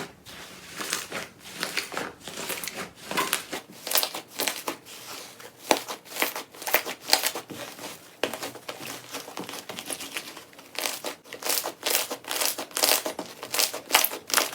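Slime being worked by hand, giving a dense, irregular run of crackles and small pops.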